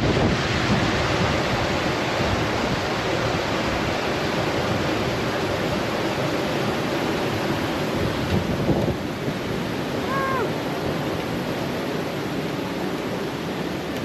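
Wind rushing over the microphone and a low rumble from an alpine coaster sled running down its track. The noise is loud and steady and eases slightly toward the end.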